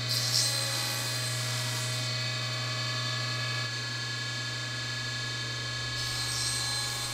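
Table saw motor running with a steady hum. A brief louder hiss comes just after the start and again about six seconds in, as the blade cuts through the rail stock on a crosscut sled.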